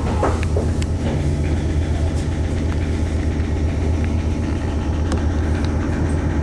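Meitetsu electric train standing at the platform, giving off a steady low hum, with a few light clicks in the first second.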